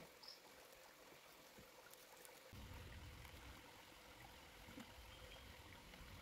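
Near silence: faint background noise with a few faint clicks, and a low rumble that comes in about two and a half seconds in.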